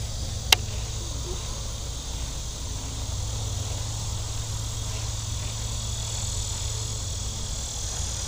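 Steady chorus of insects outdoors over a low steady hum, with one sharp click about half a second in.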